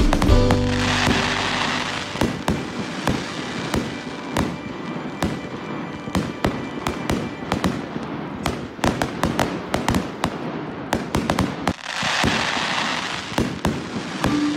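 Fireworks going off in a rapid, irregular series of bangs and pops. There are two stretches of dense hissing crackle, one about a second in and one near the end.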